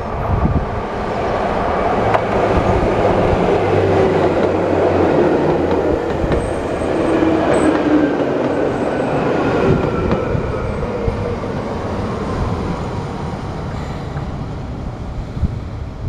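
A Nagano Electric Railway 8500-series electric train passes close by, its wheels running over the rails. A whine falls slowly in pitch as it draws away.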